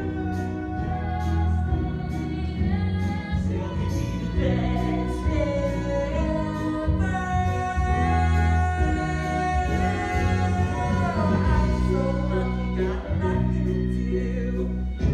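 A musical-theatre song: voices singing a melody with long held notes over an instrumental accompaniment with a strong, steady bass.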